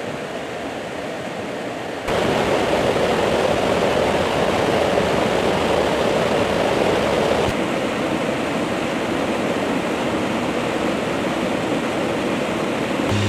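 Steady rush of airflow and engine noise aboard a KC-130J Hercules in flight with its rear cargo ramp open. The sound jumps louder about two seconds in and changes tone again about seven and a half seconds in.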